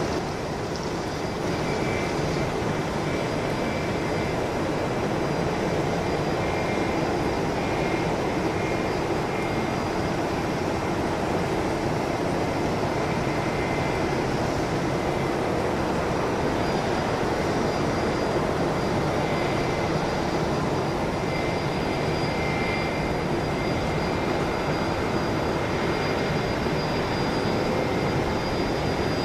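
Boeing 737 jet engines running steadily, a broad even noise with a faint high whine over it.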